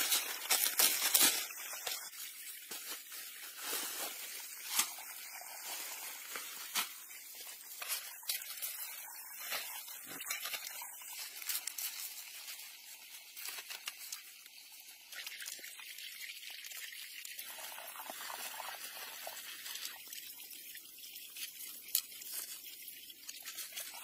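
Palm fronds rustling and crackling as they are handled and laid in place, loudest in the first second or two, with scattered clicks over a steady high hiss.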